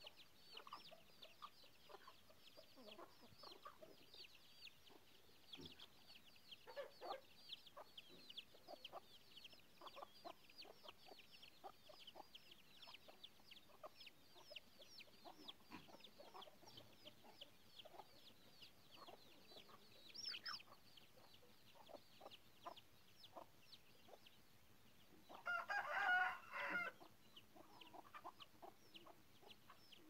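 A brood of Aseel chicks peeping without pause, a stream of short, high, falling cheeps. Near the end a louder call from an adult chicken, lasting about a second and a half, stands out over them.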